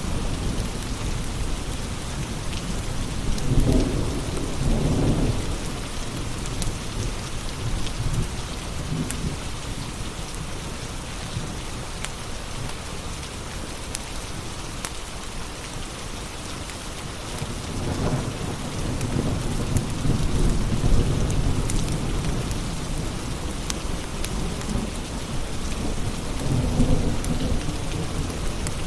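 Steady rain with rolling thunder: low rumbles swell a few seconds in, again past the middle for several seconds, and once more near the end. Faint scattered crackles of a wood fire come through the rain.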